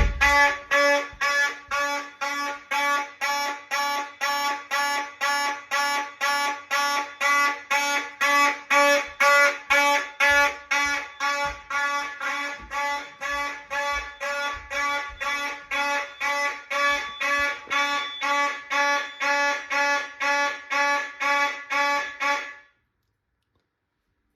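Fire alarm sounding a buzzy, pulsing tone at about two pulses a second during a monthly system test. It cuts off suddenly near the end.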